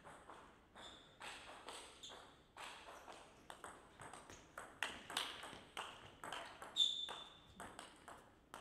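Table tennis ball clicking off paddles and the table, sharp knocks coming irregularly several times a second. One hit about seven seconds in is the loudest and leaves a short high ping.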